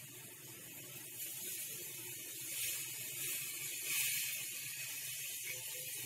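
Garlic-buttered brown bread sizzling on a hot griddle pan: a steady hiss that swells a little as fresh slices are laid down, around three and four seconds in.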